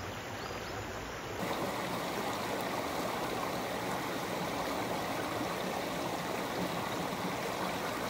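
Shallow mountain stream running over boulders and stones: a steady rush of water, a little louder from about a second and a half in.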